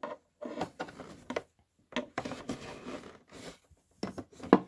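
Handling noises as a microphone cable is coiled and packed away: irregular rustles and scuffs, with a sharp knock near the end.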